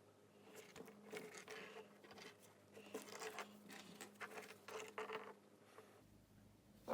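Faint rustling, small scrapes and light clicks of hands fitting stripped LED data wires into a plastic butt connector, over a low electrical hum.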